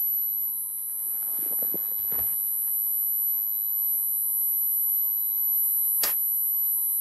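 A steady high-pitched whine with a faint hum under it. A soft rustling comes about one and a half to two seconds in, and a single short click about six seconds in.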